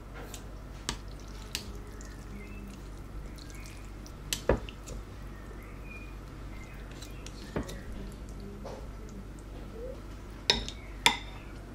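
A ceramic soup spoon and utensils clink against a ceramic bowl while noodles are lifted out and broth is scooped, with small drips of broth. There are a handful of sharp clicks, loudest about four seconds in and near the end, over a steady low hum.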